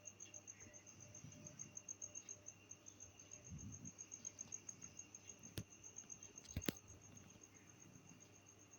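Faint, slow snoring of sleeping people, a soft low breath every two seconds or so, under a cricket's steady rapid chirping. Two sharp clicks come about a second apart in the second half; the second is the loudest sound.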